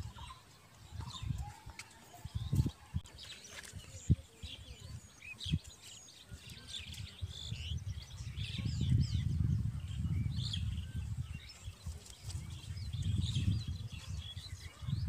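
Small birds chirping repeatedly, in many short high calls. Wind rumbles on the microphone in two long stretches from about eight seconds in, and there are a few short low knocks in the first half.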